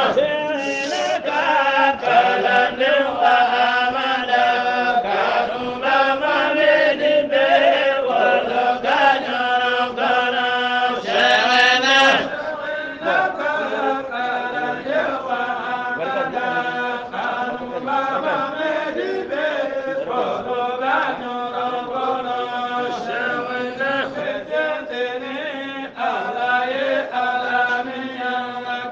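Voices chanting a qasida, an Islamic devotional poem, in a continuous melodic chant.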